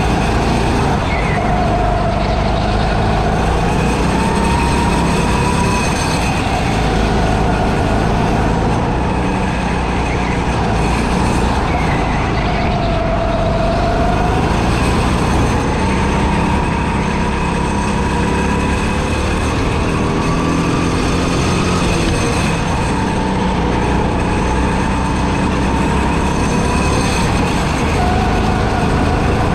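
Go-kart running at speed, heard from the driver's seat. A steady rumble with a whine that climbs in pitch as the kart accelerates and drops back as it slows for corners, several times over.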